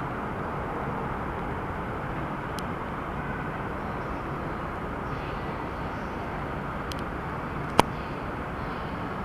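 Steady rumble of a station platform as a JR Keihin-Tohoku Line E233 series electric train pulls out and recedes along the tracks, with a few faint ticks and one sharp click near the end.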